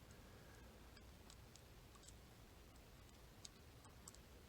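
Faint, scattered clicks of lock picks working the sliders inside an ASSA Desmo 8 high-security cam lock, about half a dozen light ticks with near silence between them.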